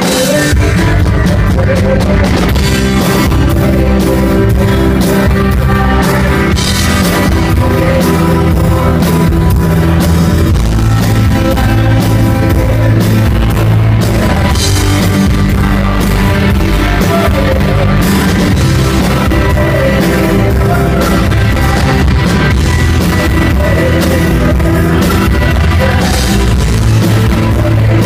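Rock band playing live: drum kit, guitars and bass, with a male lead singer singing over acoustic guitar strumming. The full band comes in loud right at the start.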